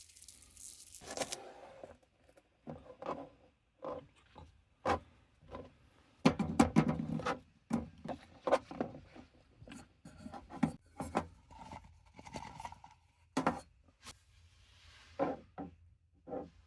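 Objects being handled close by: an irregular series of small knocks, taps and clicks, with a stretch of rubbing and scraping about six seconds in.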